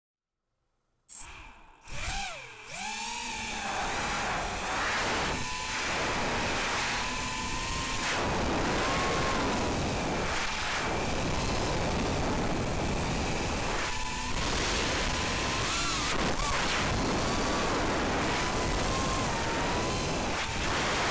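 FPV racing quadcopter's brushless motors and propellers whining, the pitch dipping and climbing with the throttle, under heavy wind rush on the onboard camera's microphone. It starts suddenly about a second in, with a deep throttle dip soon after.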